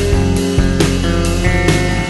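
Instrumental background music with guitar and a steady beat of about two strokes a second.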